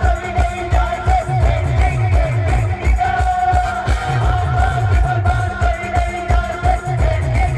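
Band music: a fast, heavy drum beat under a held, wavering lead melody.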